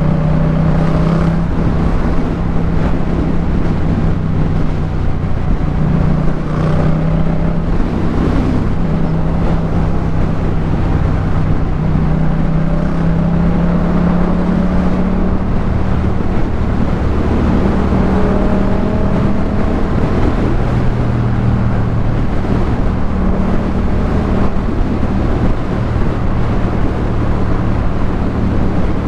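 Yamaha MT-07's parallel-twin engine through a Jeskap K4 full aftermarket exhaust, running under way at a fairly steady pace. Its pitch drifts slowly up and down without any sharp revs.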